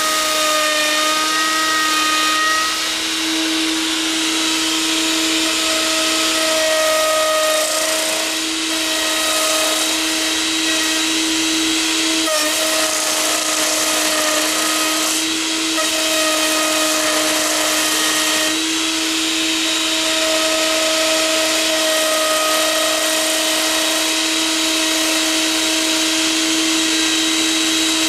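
Router on a homemade router-lathe copier running steadily with a high whine, cutting a turning hardwood stick. The level dips briefly a few times.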